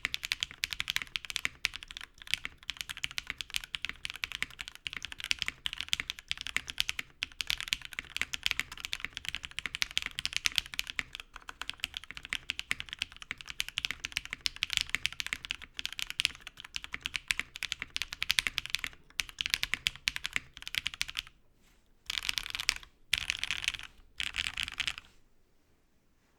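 Continuous typing on a foamless mechanical keyboard with lubed and filmed, broken-in Cherry MX Black hyperglide linear switches on an aluminum plate. The keystrokes come thick and fast, then break off into two short bursts before stopping near the end.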